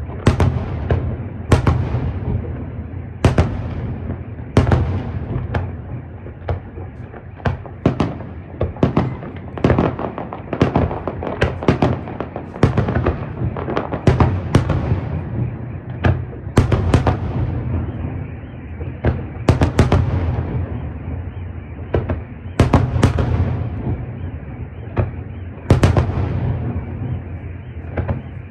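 Aerial fireworks display: shells bursting in a continuous barrage of sharp bangs, often more than one a second, each trailing off in a rolling echo over a steady low rumble.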